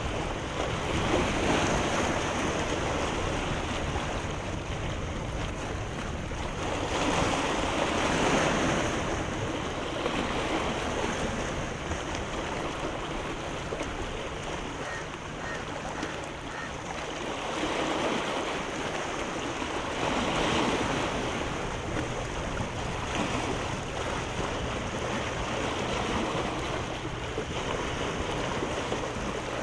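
Sea waves washing in steadily, the surf rising and falling in loudness every several seconds.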